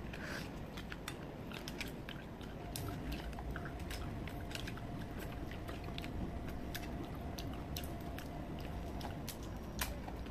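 Cooked crab shells cracking and crunching as they are bitten and picked apart, with chewing and sucking at the meat. Many small sharp cracks come irregularly throughout.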